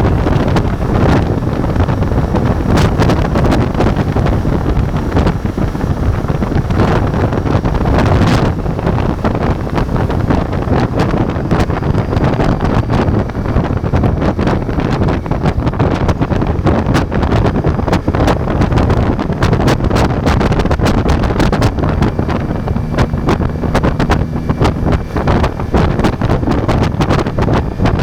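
Ducati Multistrada V4's V4 engine running on the move, with heavy wind buffeting the microphone. The engine note settles into a steadier hum near the end.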